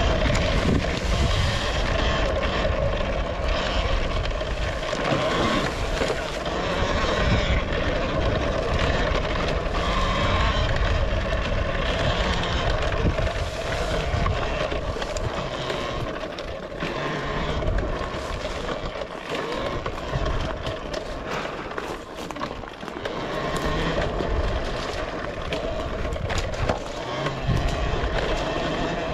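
Talaria Sting electric dirt bike ridden hard over a rough trail: a steady electric motor and drivetrain whine over wind and tyre noise, with frequent knocks and rattles as the bike hits bumps.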